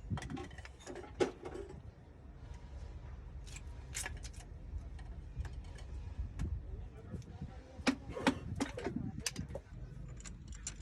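Scattered metallic clicks and clinks of tools and engine parts being handled during piston ring fitting, over a steady low hum.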